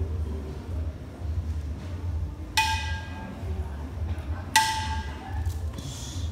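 A percussion instrument struck twice, about two seconds apart. Each stroke is a sharp hit that rings on briefly with a pitched tone, over a steady low hum.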